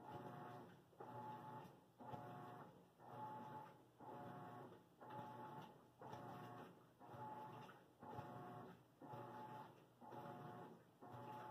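Faint machine hum pulsing about once a second, each pulse starting sharply and fading before the next.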